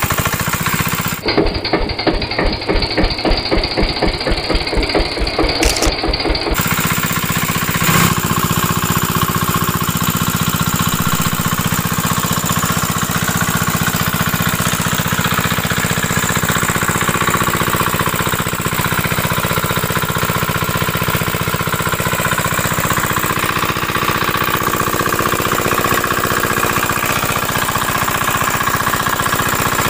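Engine-type chugging from a miniature toy tractor-engine water pump, at about five even beats a second for the first six seconds, then a faster steady rattle that runs on.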